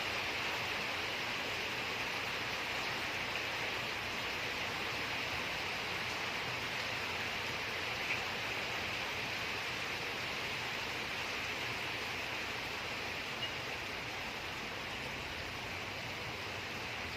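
Steady, even hiss like rain or a running fan, with two faint clicks, about eight and thirteen seconds in.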